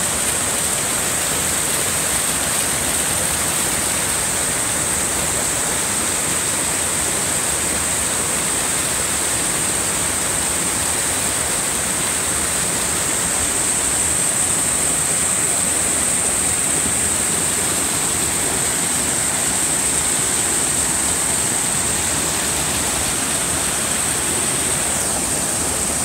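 Stream water rushing steadily over rock ledges in a series of small cascades, an even, unbroken rush.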